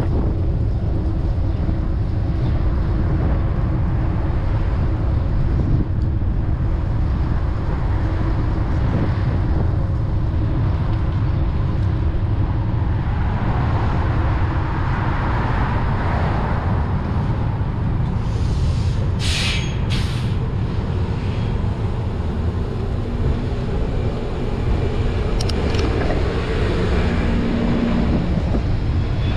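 Wind rushing over the microphone of a moving bicycle, with city street traffic around it: a vehicle swells past about halfway through, and two short sharp hisses come about two-thirds of the way in.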